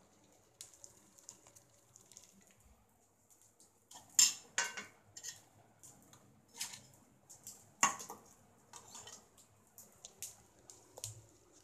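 Metal kitchen utensils and dishes clinking and knocking: a series of sharp, scattered clanks, the loudest about four and eight seconds in.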